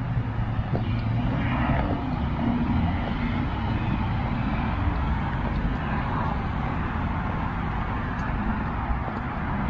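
City road traffic: cars passing on the street, a steady rumble of engines and tyres.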